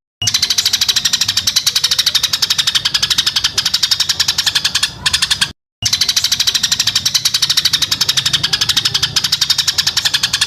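A recorded chattering trill of rapid, evenly spaced pulses, about ten a second, played in a loop as isian fill-in song for training white-rumped shamas. It cuts out abruptly for a moment just after the start and again about halfway through.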